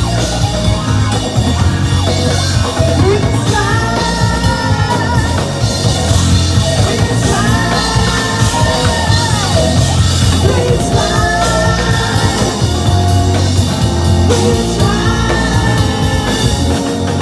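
Live rock band playing, with electric guitar, bass guitar and drum kit, and sung vocal lines that come in phrases every few seconds.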